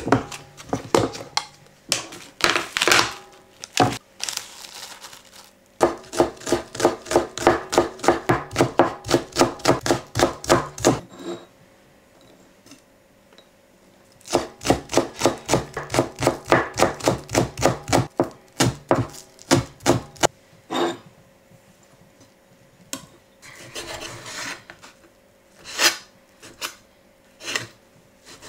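Chef's knife chopping green onions on a wooden cutting board: runs of rapid, even strokes at about four a second, broken up by slower scattered cuts.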